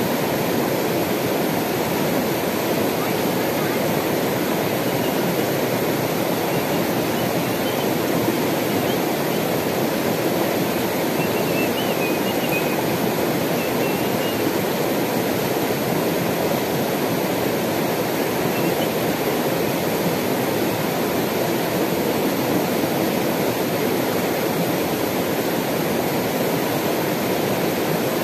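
Shallow mountain river rushing over rocks: a steady, even rush of water.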